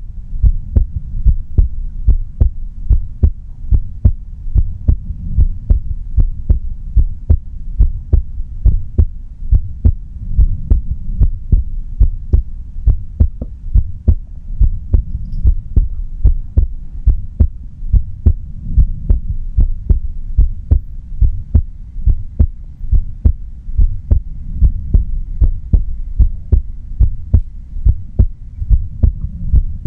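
A person's heartbeat heard up close: a steady, even rhythm of low, muffled thumps, beat after beat without a break.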